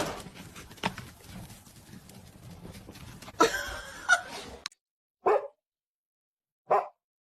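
A dog barking in short single barks, the last two about a second and a half apart.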